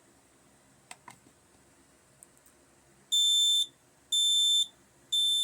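Smoke alarm sounding during a test: three loud, high-pitched beeps, each about half a second long and about a second apart, starting about three seconds in. A couple of faint clicks come about a second in.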